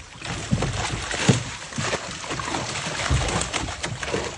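Water splashing and sloshing, with irregular low knocks and thumps.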